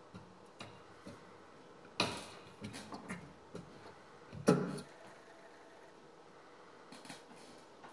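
Soft scattered clicks and two louder knocks about two and a half seconds apart, from a McIntosh MX4000 car CD head unit being handled as its knob is turned to skip tracks.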